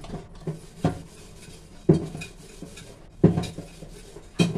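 Clinks and knocks on a steel plate as fried modaks are shuffled by hand and one is picked up: four sharp knocks about a second apart.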